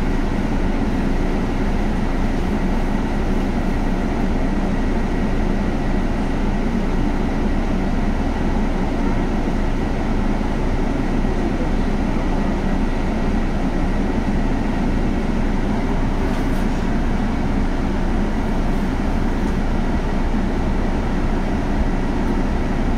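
Interior running noise of a Scania articulated city bus with a compressed natural gas engine and ZF Ecolife automatic gearbox, heard from the passenger cabin: a steady, even drone of engine and rolling noise with a faint steady high tone above it.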